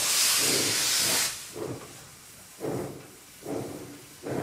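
1928 steam locomotive blowing a loud hiss of steam from its open cylinder cocks, which stops about a second in. Slow, separate exhaust chuffs follow, roughly one every 0.8 s, as the engine starts to pull away.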